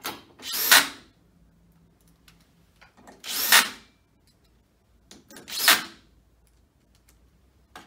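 Cordless drill-driver driving bolts into a metal desk frame, in three short runs of under a second each. Each run swells and then stops abruptly as the bolt is driven home.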